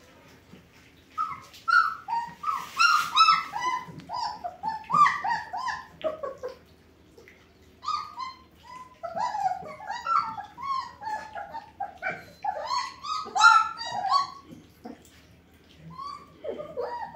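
German Shepherd puppies whining and yelping: quick strings of short, high, sliding cries in two long bouts, with a few more near the end.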